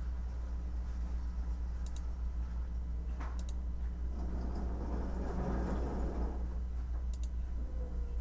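A few scattered keystrokes on a computer keyboard, some in quick pairs, over a steady low hum. A swell of rushing noise rises and fades in the middle.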